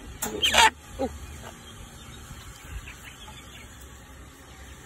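A chicken held in someone's hands gives one loud, short squawk about half a second in and a brief weaker cry near one second in.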